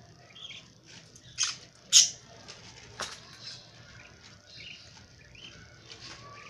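Baby birds giving short, sharp chirps: two loud ones about one and a half and two seconds in, and quieter calls scattered throughout. A sharp click comes about three seconds in.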